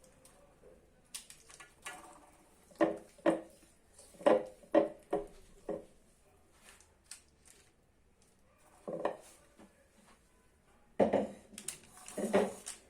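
Irregular knocks and clinks against a baking tray as pieces of marinated chicken are laid out in it, about nine strikes with pauses between them.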